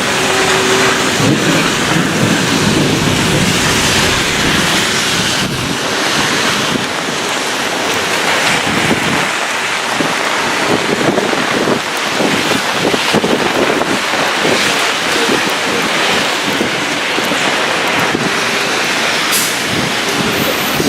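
Heavy rain pouring down in gusty thunderstorm wind, with the wind buffeting the microphone in irregular gusts.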